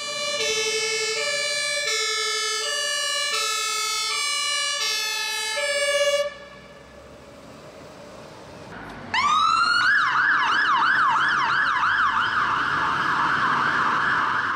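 Fire truck siren sound effect: a two-tone siren alternating between pitches for about six seconds, then after a short quieter gap a siren glides up about nine seconds in and switches to a fast up-and-down yelp.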